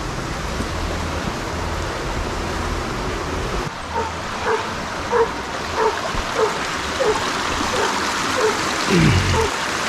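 Creek water rushing steadily, with a dog barking over it about every half second, starting about four seconds in. There is one low falling call near the end.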